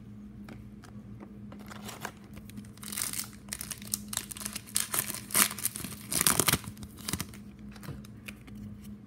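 A trading-card pack being torn open by hand, its wrapper ripping and crinkling in a run of crackling bursts through the middle few seconds, loudest near the end of the run.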